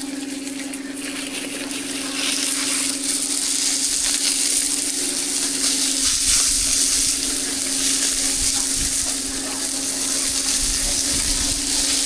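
Food frying with a steady sizzle. A low, even hum runs beneath it for roughly the first half.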